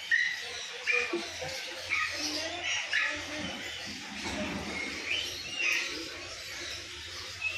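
Short, high-pitched animal chirps and squeaks coming at irregular intervals, about a dozen of them, some sliding down in pitch, over a steady low hum.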